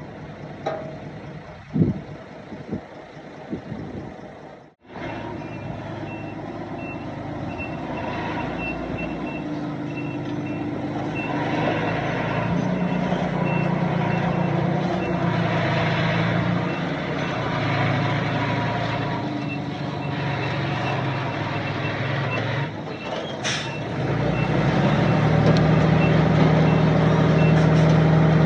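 A heavy construction vehicle backs up, its reversing alarm beeping steadily at an even pace over the running engine. The engine grows louder near the end. A few knocks come before the beeping starts.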